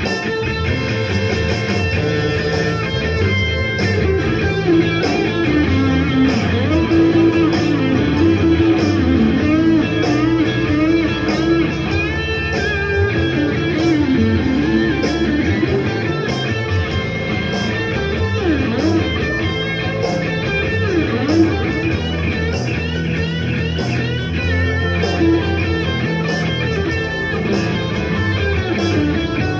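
Electric blues guitar playing single-note lead lines with string bends over a steady rhythmic backing.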